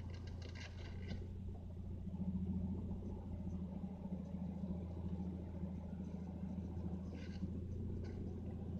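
1998 Mitsubishi Eclipse engine running at low speed, heard from inside the cabin as a steady low hum with road rumble. Short high-pitched squeaks come near the start and about seven seconds in.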